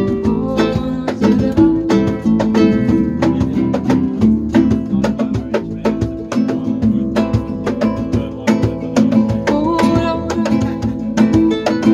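Jam-session music led by a plucked acoustic guitar playing quick, busy picked notes over sustained chords.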